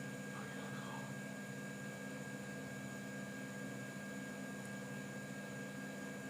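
Steady electrical hum with a constant hiss underneath; no distinct handling sounds stand out.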